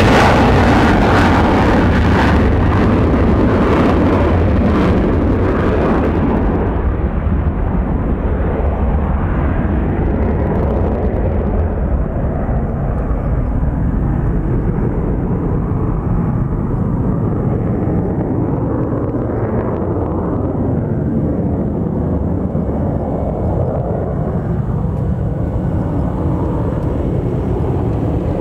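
Single-engine Mitsubishi F-2 fighter, its General Electric F110 turbofan in afterburner, climbing away. The loud jet noise fades as it recedes. The sharp high part dies away within about six seconds, leaving a steady low rumble.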